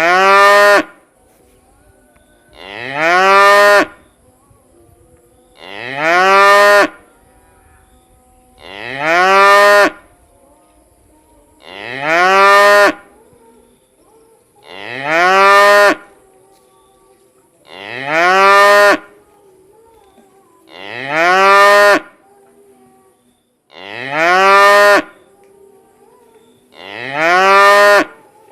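Cow mooing: about ten short calls, one every three seconds or so, each rising in pitch and then holding. All the calls sound alike.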